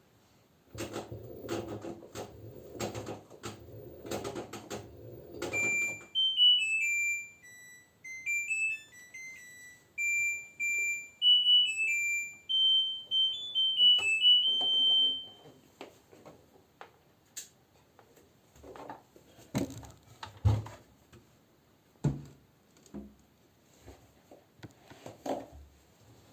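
LG washing machine playing its end-of-cycle melody: a tune of electronic beeps stepping up and down in pitch, lasting about nine seconds. Before it come a few seconds of clattering noise, and after it scattered clicks and knocks.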